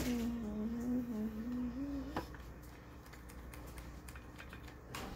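A girl humming one slightly wavering note for about two seconds, which ends in a click. After that there are only faint, scattered light clicks and taps.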